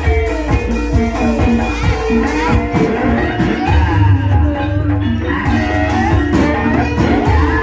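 Live gending ebeg music: a gamelan-style ensemble with frequent drum strokes under steady ringing pitched tones, and a melody line gliding up and down above them.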